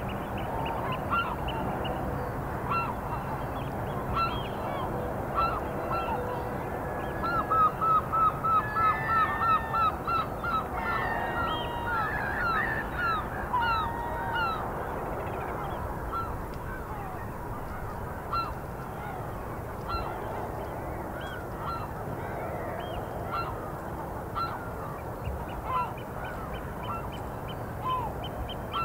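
Birds calling with short, repeated calls over a steady background rush. About a quarter of the way in comes a quick run of about a dozen calls in three seconds, followed by a few gliding calls, then scattered single calls.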